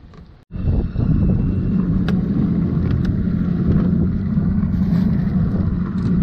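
Evinrude outboard motor running steadily with the boat under way, with wind on the microphone. The sound cuts in suddenly about half a second in, and there are a few faint clicks as a cooler lid is handled.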